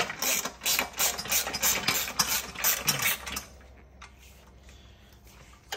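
Ratchet wrench clicking in quick repeated strokes, about four a second, as a nut is run down onto a bolt; the clicking stops a little after three seconds in, and a single click sounds near the end.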